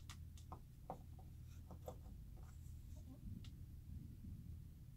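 Faint scattered clicks and light scratching from hands handling the opened iMac chassis, over a low steady hum.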